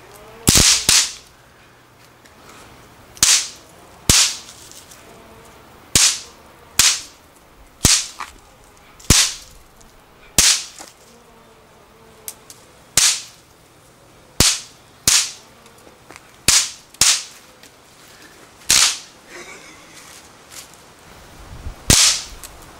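Large bang snaps (snap pops) cracking one after another as they are thrown onto concrete paving and burst on impact. There are about eighteen sharp pops at irregular intervals of roughly a second, each with a short ring-out.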